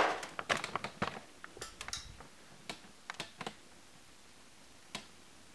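Relay on an LG 42PG20 plasma TV's power supply board clicking repeatedly and irregularly as the set keeps trying to turn on. The clicks come thickest in the first two seconds, then a few more, with a last one near the end. The clicking is the sign of a power supply board fault, here traced to leaking, bulged capacitors.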